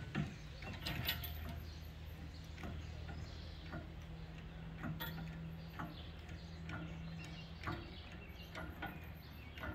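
Light metal clicks and clinks, scattered unevenly, from a lifting chain being handled on a car engine hoist, over a steady low hum.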